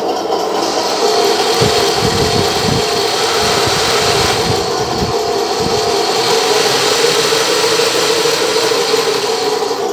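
Drive motors and full-metal tracks of a 1/16 scale RC Tiger I tank running with the tank lifted on a stand, the tracks turning freely: a steady mechanical whir and clatter that picks up about half a second in, with low knocks through the middle.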